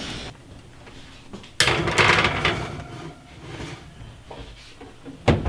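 Oven door pulled open about a second and a half in, a sudden noisy clatter that fades over about a second, then a single sharp clack near the end as the door is shut.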